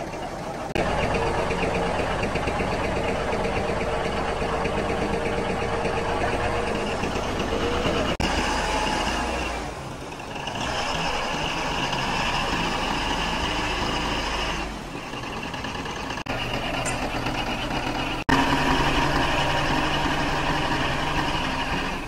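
Komatsu D155A bulldozer's diesel engine running steadily, with a steady whine over the first seven seconds or so. The level dips twice, around ten and fifteen seconds in, and jumps back up sharply near eighteen seconds.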